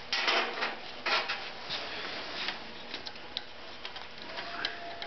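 Handling noise as a hand works a V-belt around the pulleys of a Wheel Horse snowthrower: two short bursts of rustling and rubbing in the first second and a half, then scattered light clicks of metal parts.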